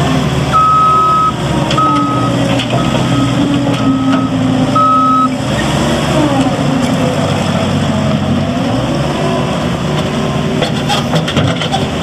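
JCB 260T tracked skid steer's diesel engine running while the machine drives, its pitch shifting as it manoeuvres. Its reversing alarm beeps five times, about once a second, over the first five seconds, then stops while the engine runs on.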